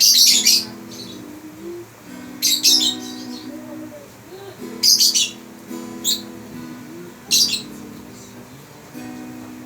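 A bird chirping loudly in four short high-pitched bursts, about two and a half seconds apart, over an acoustic guitar being plucked.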